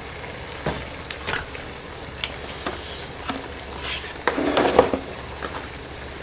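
A metal spoon and dishes clinking and scraping as rice is scooped into a wide metal pan of ramyeon stew, with scattered short knocks and a louder clatter about four to five seconds in.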